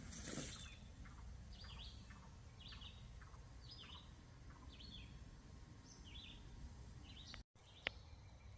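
Birds calling faintly over a low outdoor background: a series of short chirps that sweep downward, one or two a second. A single sharp click comes near the end.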